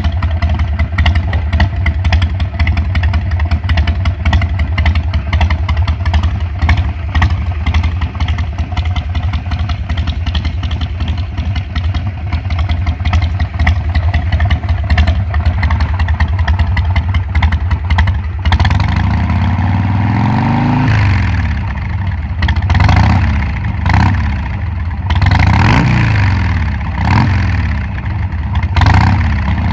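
Harley-Davidson Sportster 1200's air-cooled V-twin idling with a steady pulsing beat through Cycle Shack slip-on mufflers fitted with modded DK Custom TTI lollipop baffle inserts. About two-thirds of the way through it is revved in a series of throttle blips, each rising and falling. The exhaust has a deeper growl, not overly loud.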